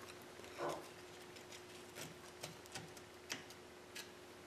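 Faint, scattered light clicks and taps of steel drill bits and a cast iron piston ring against the piston as the ring is worked slowly out of its groove by hand, over a faint steady hum.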